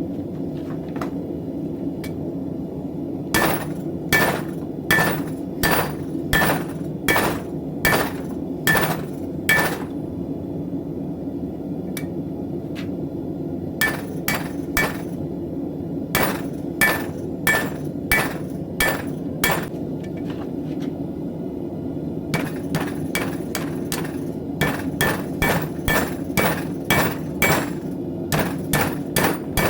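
Hand hammer striking steel on an anvil while forging a knife blade: three runs of evenly spaced blows, each with a short metallic ring, the last run quicker. A steady low hum runs underneath.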